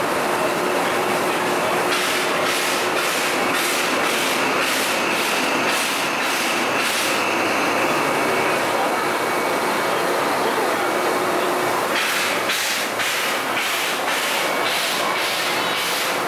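Steam locomotive standing still, its steam hissing steadily, with a regular beat of about two a second that comes in two spells, a few seconds in and again near the end.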